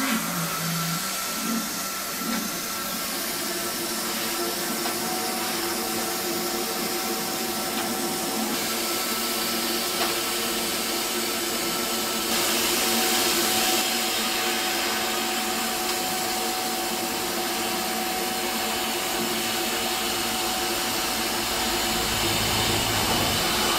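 xTool S1 40 W enclosed diode laser cutter running a cut through 0.15 mm stainless steel shim. Its active extraction fan makes a steady airy hum, with a brief louder hiss about halfway through.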